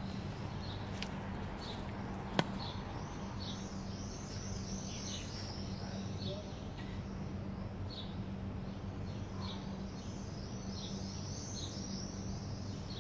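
Small birds chirping over and over in short, repeated calls, over a steady low hum. A single sharp click about two and a half seconds in.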